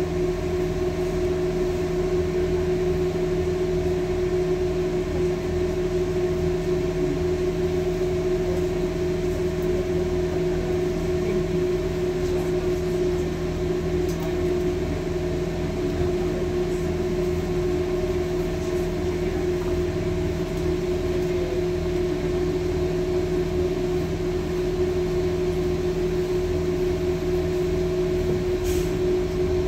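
Cabin of a Mercedes-Benz O405N2 city bus: a steady hum of the engine and on-board machinery with a constant drone, no change in pitch, heard from among the seats.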